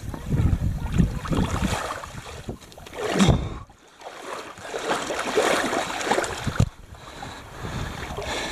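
A lemon shark splashing in shallow water as it is released, with water sloshing irregularly and wind on the microphone; the biggest splash comes about three seconds in.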